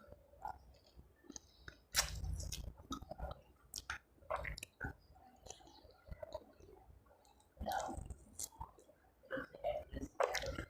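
A person chewing a mouthful of rice and mutton curry, with wet lip smacks and clicking mouth sounds and a couple of louder dull thumps.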